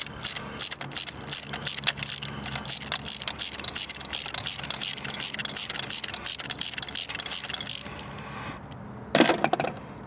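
Ratchet wrench clicking quickly and steadily, driving a spark plug socket on an extension to unscrew the plug from cylinder one, the cylinder that is misfiring. The clicking stops about eight seconds in.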